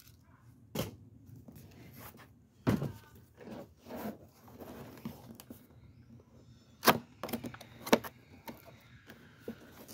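A long cardboard air-rifle box being handled on a plastic folding table: a few sharp knocks as it is laid down, stood on edge and turned, with rustling and scraping between. The two loudest knocks come near the end.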